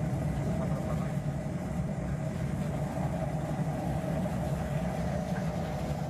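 Machinery running with a steady, even drone.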